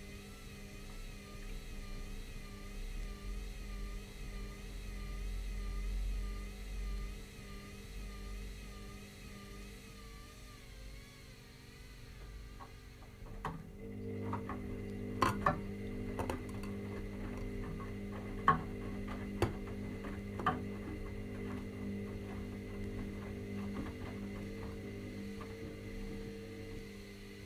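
Washing machines running a delicates cycle: a low rumble with a warbling whine, then about halfway a steady hum sets in, with a few sharp clicks or knocks.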